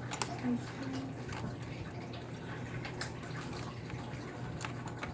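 Scattered faint clicks and taps of small iBook G4 case parts being handled and fitted by hand, over a steady low hum.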